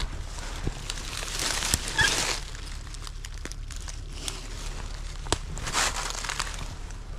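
Footsteps crunching and rustling through dry leaf litter and undergrowth, in two louder spells: around two seconds in and again near six seconds.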